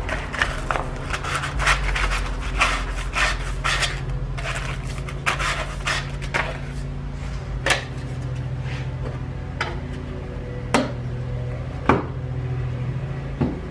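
Sandpaper rubbing the cut end of black plastic sewer pipe in quick, irregular strokes, smoothing it so nothing can snag on it. Near the end this gives way to a few sharp knocks of plastic pipe and fittings set down on a wooden bench, over a steady low hum.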